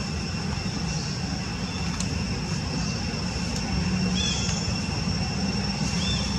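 Steady outdoor ambience: a continuous low rumble under a steady high-pitched hum, with two short chirps about four and six seconds in.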